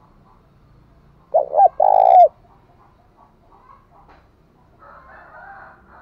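Spotted dove cooing one phrase: two short notes quickly followed by a longer, louder coo, about a second in.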